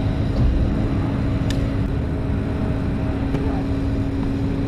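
Tennis rally: a few sharp pops of the ball off racquet strings, a couple of seconds apart, the loudest about a second and a half in, over a steady low hum and rumble.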